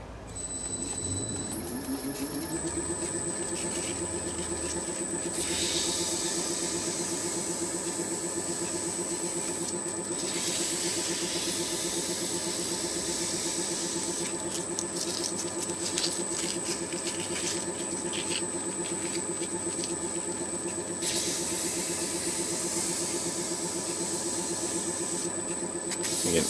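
Metal lathe coming up to speed and then running steadily with a high electronic whine, spinning a vise leadscrew. Kerosene-wetted 1200-grit wet-or-dry paper scrubs along the turning threads with a hiss, from about five to ten seconds in and again near the end.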